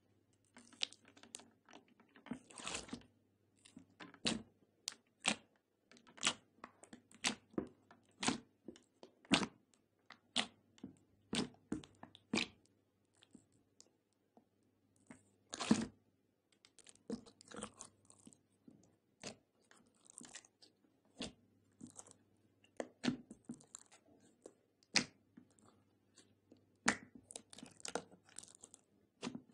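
Hands pressing and kneading glossy slime: irregular sharp, wet pops and squelches, about one or two a second, with a short pause about halfway through.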